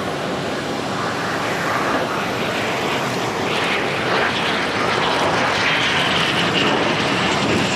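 Kawasaki T-4 jet trainer's twin turbofan engines on landing approach, with gear down. The jet noise grows louder as it nears, and a whining tone comes in over the last few seconds.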